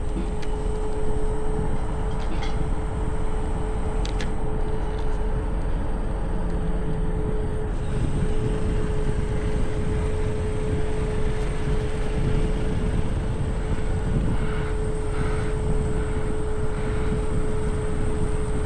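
Electric scooter riding at a steady speed: a steady high motor whine over a low rumble of wind and road noise, with a few faint ticks in the first few seconds.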